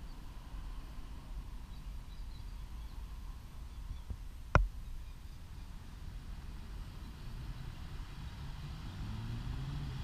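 Steady low outdoor rumble at a railway level crossing whose signals flash without any warning bell. A single sharp click comes about halfway through, and a low rising hum builds near the end.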